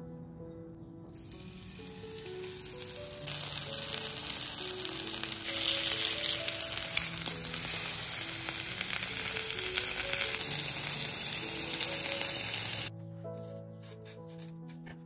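A steady loud hiss, like sizzling, over soft background music. It starts about a second in, grows louder a couple of seconds later and cuts off abruptly near the end.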